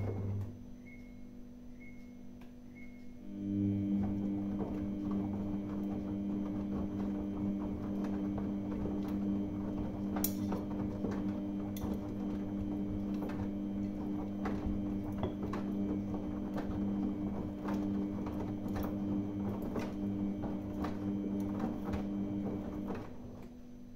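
Samsung front-loading washing machine in its main wash: the drum motor stops just after the start, then starts again about three and a half seconds in, turning the drum with a steady hum while the wet laundry tumbles and sloshes with scattered clicks, and stops again near the end.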